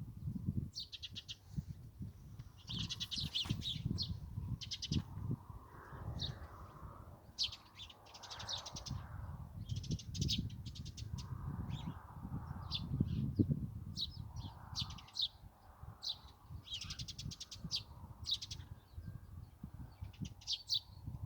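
Songbirds chirping and trilling in quick, high runs of notes, with a hoarse, harsher lower call every few seconds, over a low, uneven rumble.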